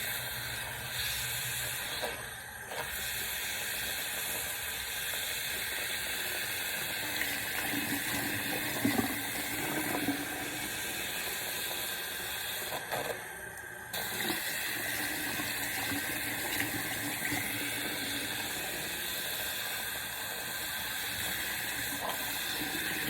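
Tap water running steadily into a sink, the flow briefly broken twice, about two seconds in and again around thirteen to fourteen seconds in.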